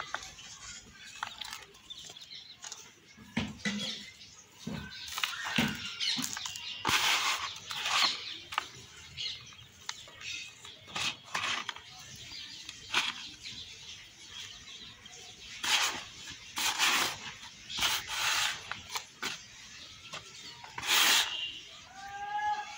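Dry yellow soil crumbled and crushed by hand in a plastic tub: irregular gritty crunches as molded cup-shaped lumps break apart, with the rustle and patter of loose powder falling between them.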